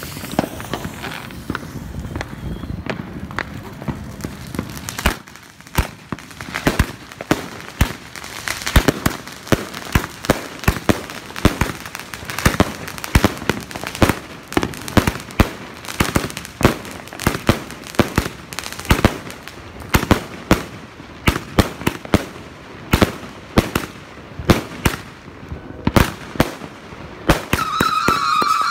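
A 260-shot firework cake firing: about five seconds in, the tubes start going off in a rapid, uneven string of sharp bangs, a few a second. A whistling tone joins in near the end.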